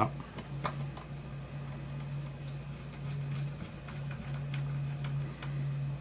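Faint, scattered ticks of a small screwdriver turning a short round-topped screw into a graphics card, over a steady low hum.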